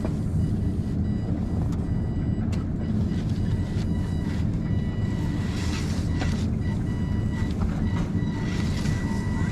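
An RC scale crawler truck's electric motor and geared drivetrain running. It makes a steady low rumble with a thin high whine that comes and goes.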